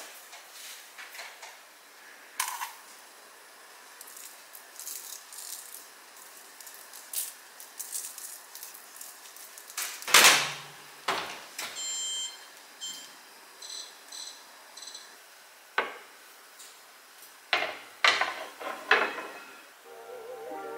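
Kitchen utensils and dishes handled while puff pastries are topped with jam and sugar: scattered clinks, taps and scrapes, a louder knock about halfway, and a few short ringing clinks just after it.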